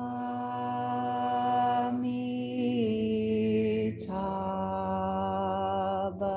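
Voices chanting a Buddhist mantra together in long, drawn-out held notes. The pitch steps down a little before three seconds in, and after a brief breath about four seconds in, a new held note begins.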